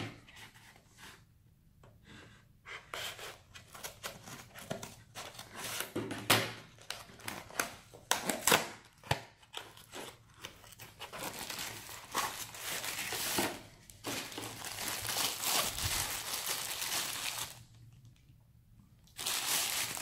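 Hands unboxing a sealed cardboard box: the seal tearing, cardboard scraping and tapping, in irregular scratchy bursts with short clicks. Near the end a plastic bag crinkles as the product is pulled out.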